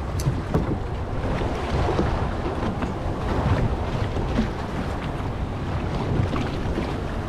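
Wind buffeting the microphone over sea water washing against a small fishing boat's hull: a steady low rumbling noise with a few faint knocks.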